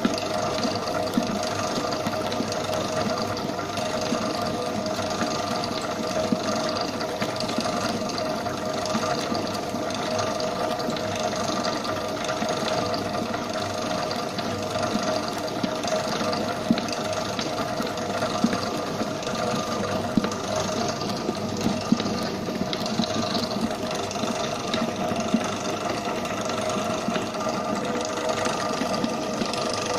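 Bakery stand mixer running steadily, its beater churning butter cream icing in a steel bowl. The motor and gears give a constant whine, with a few brief clicks.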